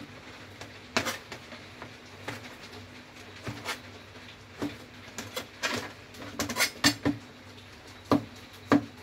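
Cleaver chopping chicken sausages on a white plastic cutting board: irregular sharp knocks of the blade hitting the board, with a quicker run of chops about two-thirds of the way through.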